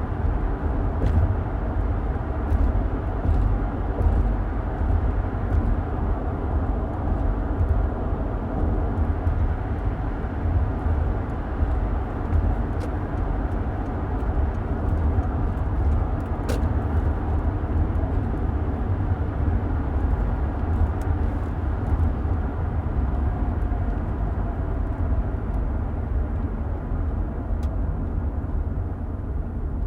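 Car driving along a road, heard from inside the cabin: a steady low rumble of road and engine noise that holds even throughout.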